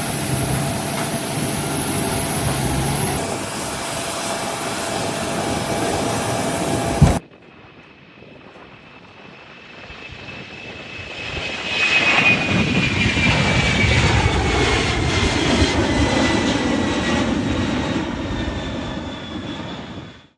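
Steady engine noise that cuts off abruptly after about seven seconds; then an aircraft approaches, passes with its whine falling in pitch, and fades away.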